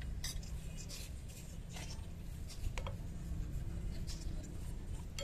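Spoon scraping and clicking against a ceramic plate of rice: several short, separate scrapes and taps over a steady low background hum.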